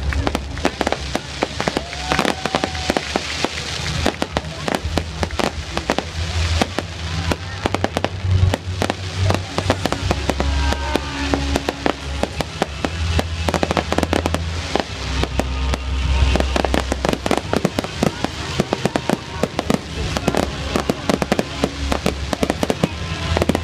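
Fireworks display: a rapid, continuous barrage of aerial shells bursting, many bangs and crackles a second.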